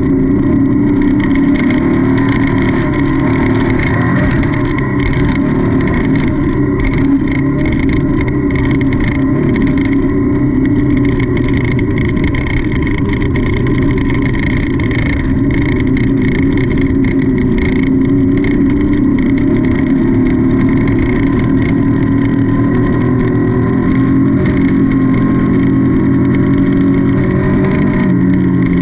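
Off-road race car's engine running hard and heard from on board, its pitch wavering up and down with the throttle, over a constant clatter of short knocks and rattles.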